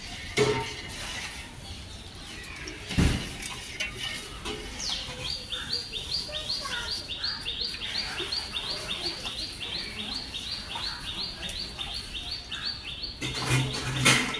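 A high chirping call repeated steadily about three times a second, starting about five seconds in. A few sharp knocks sound over it, the loudest about three seconds in and another near the end.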